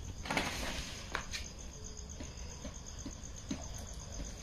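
A cricket trilling steadily in the background, a high, evenly pulsing chirp. A short rustle comes just after the start, and a few light knocks follow.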